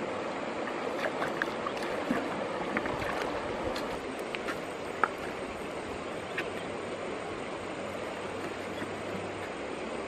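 Shallow river water flowing in a steady rush, with scattered small ticks and splashes over the first few seconds and one sharp knock about five seconds in.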